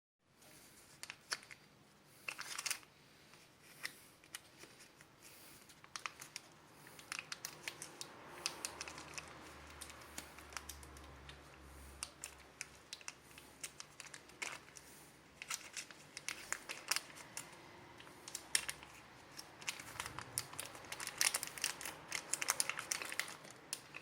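Plastic wrapping crinkling and crackling as it is handled and opened, a run of irregular crackles with a few sharper clicks.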